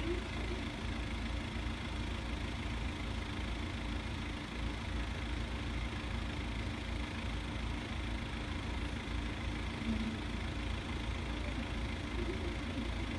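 A car's engine idling with a steady low rumble.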